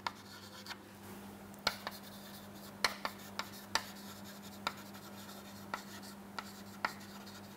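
Chalk writing on a chalkboard: a string of short, sharp, irregular taps and light scratches as the letters are formed.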